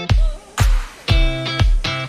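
Background music with a steady beat, about two beats a second, and held chords between the beats.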